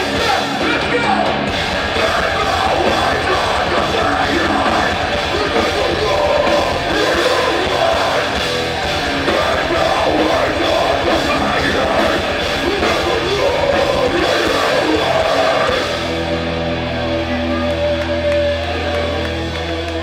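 Live punk band playing loud and fast, with distorted guitars, pounding drums and yelled vocals. About sixteen seconds in, the drumming stops and held guitar chords ring on.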